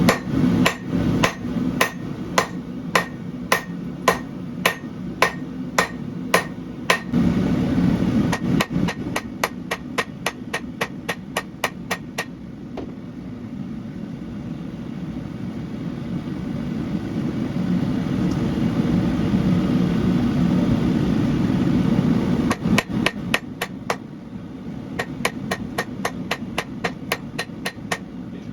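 Hand hammer striking hot Damascus steel on an anvil: a run of heavy blows about two a second, then quicker, lighter blows, a pause of about ten seconds, and a fast run of blows again near the end. A steady low roar runs underneath.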